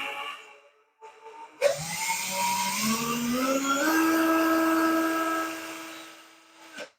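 Electric drill spinning a 3D-printed plastic differential gear set. The motor's pitch rises for about two seconds, holds a steady whine, then cuts off shortly before the end.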